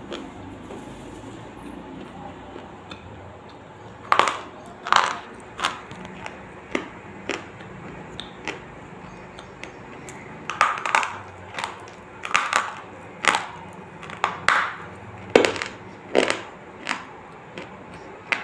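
Crunching of ice being bitten and chewed close to the microphone: after a few seconds of quiet background, an irregular run of sharp crunches, roughly one or two a second, continues to the end.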